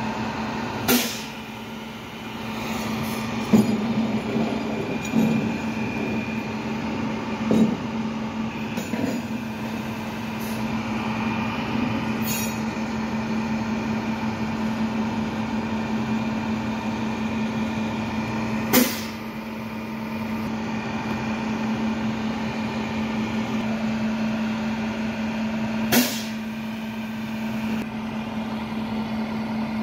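International flatbed tow truck's engine running steadily with an even hum. A few clunks come in the first ten seconds, and three short sharp air hisses come about a second in, midway and a few seconds before the end.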